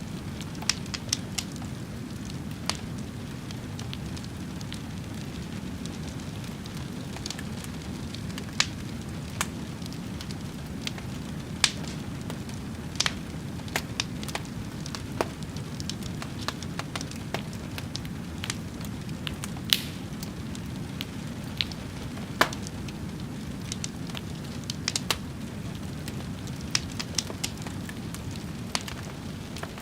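Wood fire burning with a steady low rumble and irregular sharp crackles and pops.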